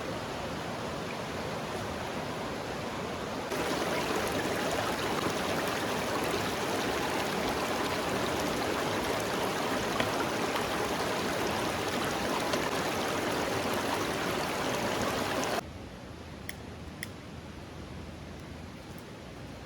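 Steady rush of flowing river water, growing louder about three seconds in and dropping away sharply near the end, leaving a quieter hiss with a few faint ticks.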